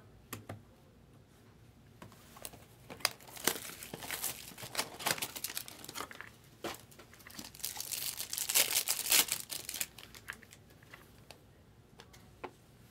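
A Topps Chrome trading-card pack being handled and its wrapper crinkled and torn open, in a run of dense crinkling that is loudest about two-thirds of the way through. Scattered clicks and taps of cardboard and plastic handling come before and after it.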